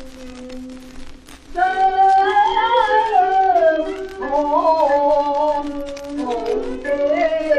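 Early-1930s Cantonese popular song played from an old 78 rpm record under faint surface crackle: quiet held accompaniment notes, then about a second and a half in a louder, wavering melody line comes in over them.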